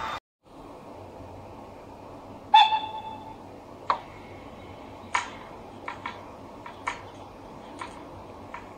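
Leosoundlab sound decoder in a Roco H0 model of the FS E.432 electric locomotive, played through its small speaker: a series of sharp clicks over a low steady hum. The loudest click comes about two and a half seconds in and carries a brief ringing tone, then smaller clicks follow at irregular intervals.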